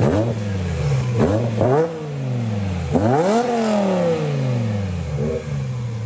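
Car engine revved in several sharp blips, each rise in pitch falling back quickly; the biggest rev, about three seconds in, dies away slowly toward idle, with a small blip near the end.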